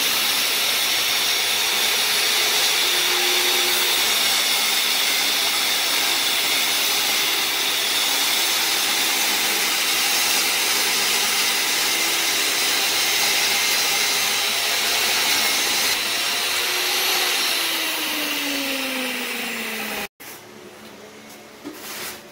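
Portable jobsite table saw running and cutting an OSB subfloor panel, a loud steady noise. Over the last few seconds its pitch falls as the blade winds down, then the sound cuts off abruptly.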